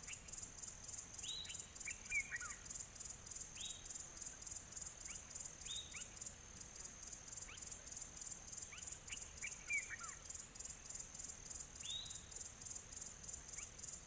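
Faint outdoor chorus of insects, a high-pitched steady pulsing at about three or four pulses a second. Short bird calls that slide down in pitch break in every few seconds, with a fuller burst of calls about two seconds in and again near ten seconds.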